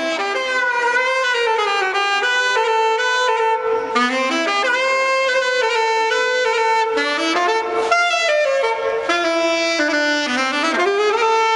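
A wind instrument playing a solo melody, its notes held and joined by slides in pitch.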